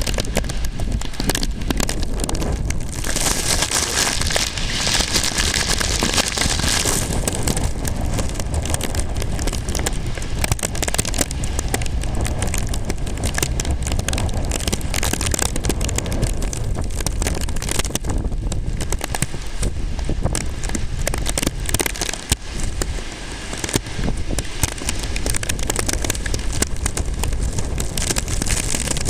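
Steady, loud storm noise of typhoon wind and rain, with a brighter hiss for a few seconds about three seconds in.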